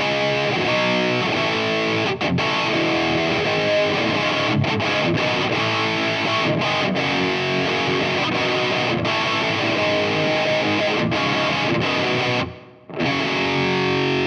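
Ibanez electric guitar played through a Valeton multi-effects unit on a crunch preset: continuous overdriven riffs and chords with a thick, slightly fierce tone. The playing stops for a moment about twelve seconds in, then a chord is struck and left ringing.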